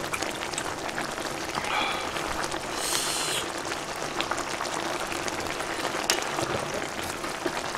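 Pot of army base stew (budae-jjigae) with ramen noodles bubbling on a tabletop burner, a steady crackling simmer of many small pops while chopsticks stir and lift the noodles. A brief hiss about three seconds in.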